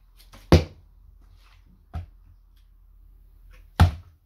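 Part-filled plastic bottles knocking down onto a wooden board and onto each other in bottle flipping, three knocks in all. The loudest comes about half a second in and a weaker one about two seconds in. A strong one near the end is a flipped bottle landing upright on top of the other, bottom to bottom.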